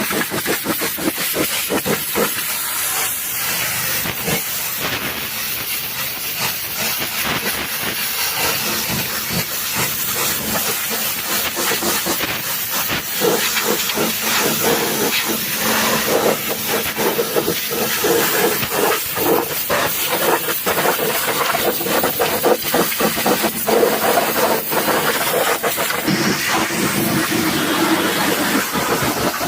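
High-pressure washer jet spraying a muddy truck: a loud, steady hiss full of crackling spatter as water and mud strike the panels, over a low, steady hum.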